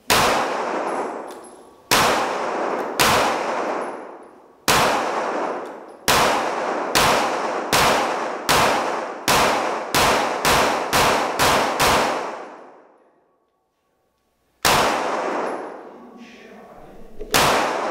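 Tanfoglio 9 mm pistol firing a string of about fifteen shots, each with a long echoing tail. The shots start a second or so apart and quicken to about two a second, then after a short break come two more, the last near the end.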